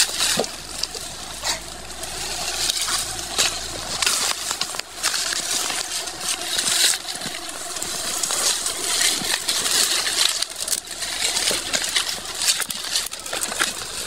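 Leaves and twigs rustling and crackling close up as branches are pushed aside and cut in dense dry scrub, with irregular sharp snaps throughout.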